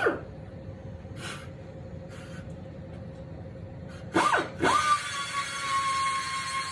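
Handheld electric power tool being blipped on and off in short pitch sweeps, then run continuously from about four seconds in with a steady high whine that slowly drops in pitch.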